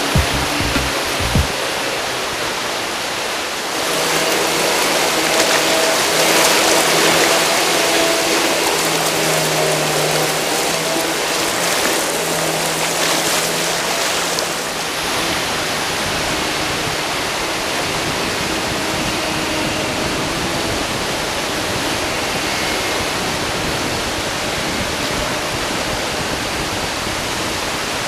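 Rushing whitewater of river rapids, a loud steady hiss. It swells between about four and fifteen seconds, when a low steady hum sits beneath it.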